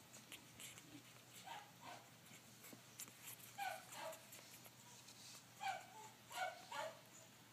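Two-week-old puppies giving short, faint whimpers and squeaks, mostly in pairs every second or two.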